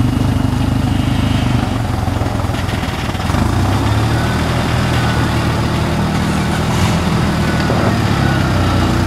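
Rock crawler's engine running at low revs as the vehicle crawls slowly over a rock ledge, the engine note shifting and getting slightly louder about three seconds in.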